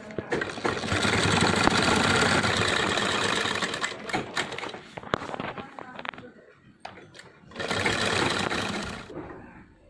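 Sewing machine edge-stitching a shirt piece: one long run of about four seconds, a few seconds of scattered clicks, then a second short run of about a second and a half.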